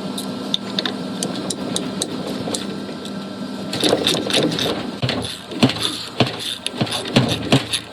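A steady low machine hum, and from about halfway through a run of sharp clicks and knocks of parts and tools being handled while a top-load washer's drive is reassembled.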